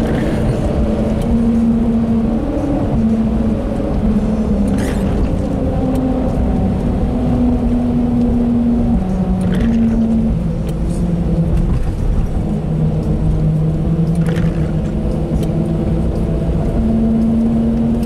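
Car tyres humming over an open steel-grid bridge deck, heard from inside the car: a steady drone whose pitch sinks partway through and climbs back near the end as the speed changes.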